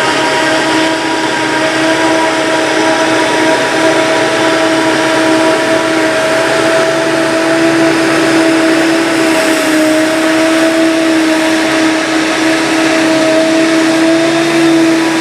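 Heavy forage-harvesting machinery running steadily at working revs under load, with a strong, steady high whine.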